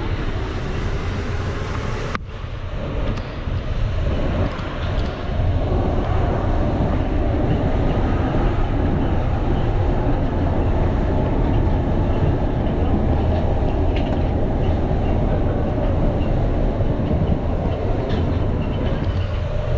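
Paris Metro train running, a steady loud rumble and rolling noise, with a sudden cut about two seconds in.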